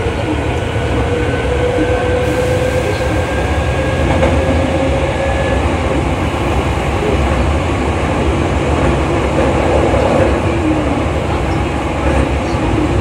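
Hankyu 3300-series resistor-controlled electric train running through a subway tunnel, heard from inside the car: a steady rumble of wheels on rail, with a motor hum that rises slightly in pitch over the first few seconds and then fades.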